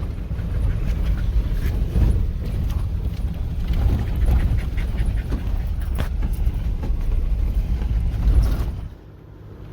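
Off-road 4x4 driving slowly over a rough dirt trail, heard from inside the cabin: a steady low rumble with scattered knocks and rattles, cutting off sharply about nine seconds in.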